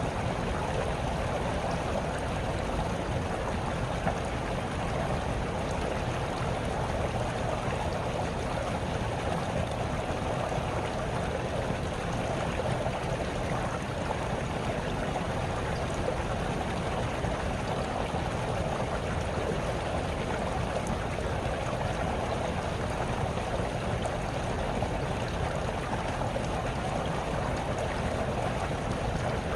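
Small stream babbling and trickling over stones, a steady even rush of water without breaks.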